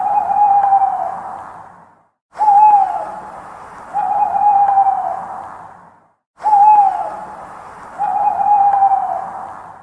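Owl hooting: a short hoot that drops in pitch, then about a second and a half later a longer hoot held and slowly falling, the pair repeating about every four seconds. A hissy background cuts out to dead silence briefly between repeats, as in a looped recording.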